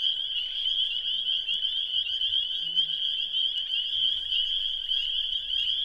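A dense chorus of many frogs calling at once: a steady, high-pitched wall of overlapping calls, so loud it almost hurts the ears.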